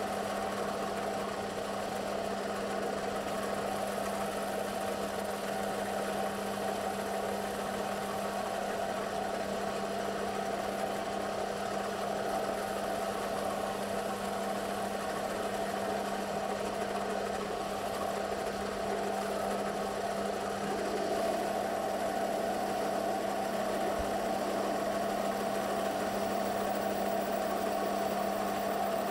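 Metal lathe running at a steady speed, turning a large disc-shaped workpiece, with a constant hum that grows slightly louder about two-thirds of the way through.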